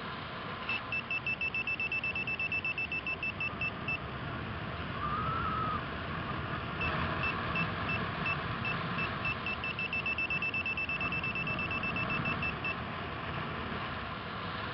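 Paraglider's variometer beeping fast at one steady high pitch, about six short beeps a second, in two runs with a pause of a few seconds between. This is the climb tone, the signal that the glider is rising in lift. Steady wind noise runs underneath.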